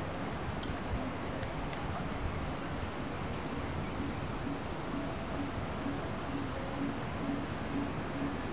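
Steady high-pitched chorus of insects such as crickets, shrilling without pause, over a low rumble. In the second half a faint low note repeats about twice a second.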